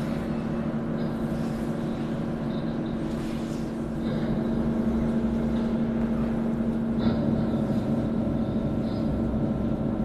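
Steady droning soundtrack of layered held tones, with one strong low tone running through it, growing slightly louder about four seconds in.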